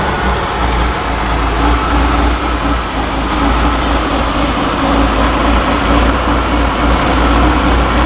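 Chevrolet 230 straight-six running at a steady fast idle shortly after starting, heard close to its Weber 32/36 two-barrel carburetor. The revs are high, which the owner puts down to a vacuum leak in this carb setup.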